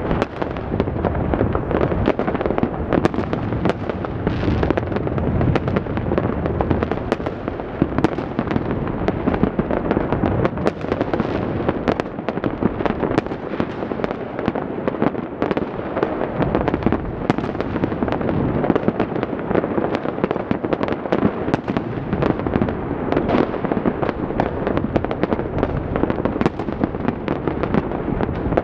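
Many fireworks and firecrackers going off at once, a dense, unbroken crackle of bangs and pops with no pause.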